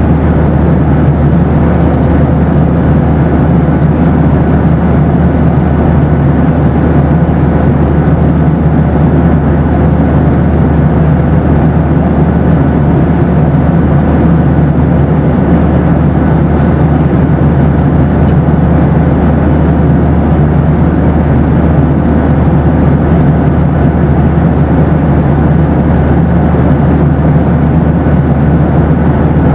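Boeing 737 airliner cabin noise in flight: a constant, even rush of engine and airflow noise with a strong low hum and a faint steady tone above it.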